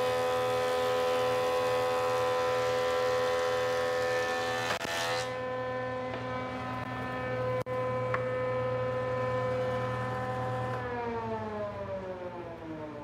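Thickness planer milling a cedar board, running with a steady high whine and a loud hissing cut that stops about five seconds in as the board clears the cutterhead. The machine then runs empty and is switched off near the end, its whine falling in pitch as it spins down.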